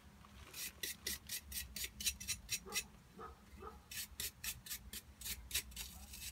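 Hand wire brush scrubbing dirt off a drum-brake part in quick back-and-forth strokes, about five a second, with a short pause near the middle.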